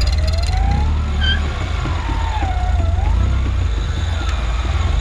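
Toyota truck driving on an offroad trail: a steady low drivetrain rumble with a faint whine that rises and falls in pitch, and a short high squeak about a second in.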